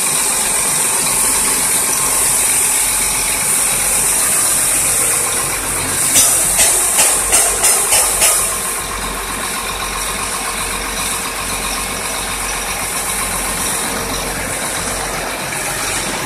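Sinotruk HOWO sewage suction truck running, its engine idling under a steady high-pitched hiss. About six seconds in comes a quick run of six sharp clicks, about three a second.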